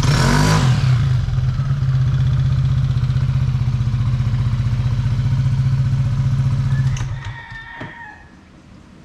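Yamaha Aerox 155 scooter's single-cylinder four-stroke engine idling steadily through an aftermarket WF exhaust pipe, with a brief rev at the very start. About seven seconds in the engine winds down and stops, with a couple of clicks as it dies.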